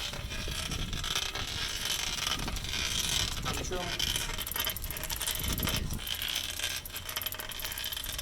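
Bicycle's rear hub area making a steady, dry crunching with many fine clicks: the odd crunch that the mechanic first takes for a bottom bracket noise but suspects comes from the rear hub or cassette, with dirt or sand got inside.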